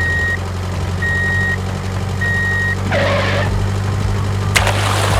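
Vehicle reversing beeper sounding three even single-tone beeps about a second apart over a steady low engine hum. A short hissing burst follows, then a sharp click and a rush of noise near the end.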